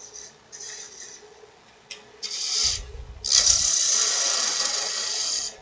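Turning tool cutting spinning aspen on a wood lathe: a few short hissing cuts, then a longer, louder hissing cut from about three seconds in until near the end. The lathe hums steadily underneath, and there is a dull low thud just before the long cut.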